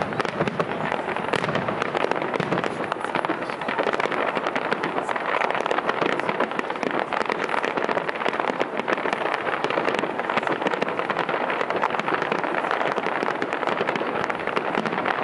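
Aerial fireworks display: a dense, continuous crackle of many small bursts, with no single big bang standing out.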